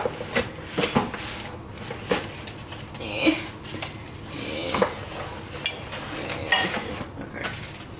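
Stacked ceramic dinner plates clinking and knocking against each other as they are worked out of their cardboard packaging, with cardboard scraping. The clinks come irregularly, a dozen or so sharp taps.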